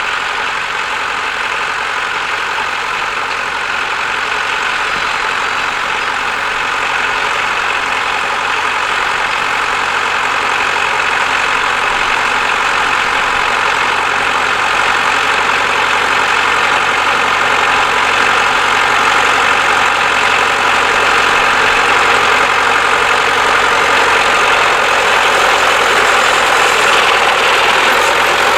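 Tractor engine running steadily, growing gradually louder over the stretch.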